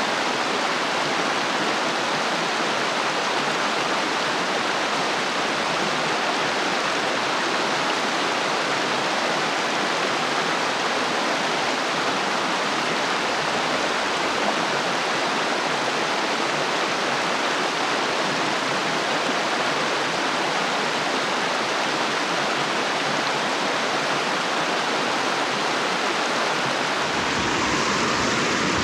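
Steady rushing of river water over rocky rapids. Near the end the sound changes, with more low rumble and less hiss.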